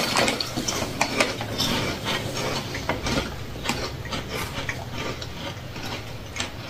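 Several people chewing crunchy Turtle Chips, churro-flavoured corn chips: a run of irregular crisp crunches that thin out a little toward the end.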